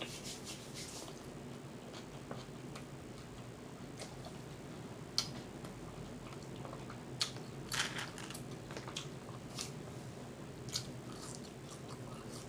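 Close-miked chewing of food, with scattered wet mouth clicks and smacks about every second or two.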